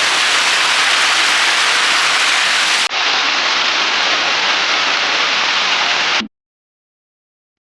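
Steady, loud rushing noise of heavy rain with no distinct drops or rhythm. It changes slightly at a cut about three seconds in, then stops abruptly into silence a little after six seconds.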